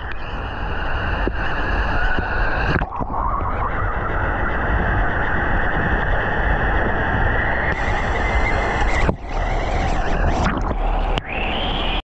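Water rushing down a water-slide flume, with a rider's body sliding through it, heard close up from a camera carried by the rider. The noise is steady and loud and dips briefly twice near the end.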